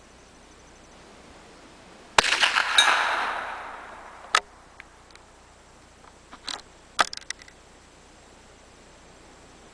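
A single shot from a CZ 452 American bolt-action .22 rifle about two seconds in, its report ringing and fading over a second or so. A few sharp metallic clicks follow as the bolt is worked to eject the spent case and chamber the next round.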